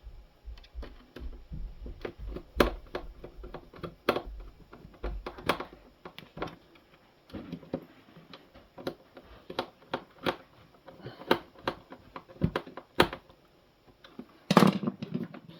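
Hand tools and hard plastic housing parts of a coffee machine clicking and tapping at irregular spacing while screws are driven in by screwdriver, with a louder clatter near the end.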